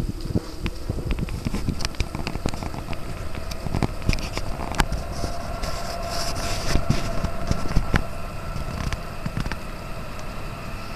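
Wind rumbling on the microphone, with scattered crackles and knocks. A faint steady hum comes in about five seconds in.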